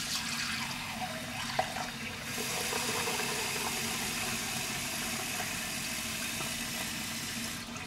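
Water running from a kitchen tap into a bowl as it is refilled with clean water. The flow steadies about two seconds in and cuts off just before the end.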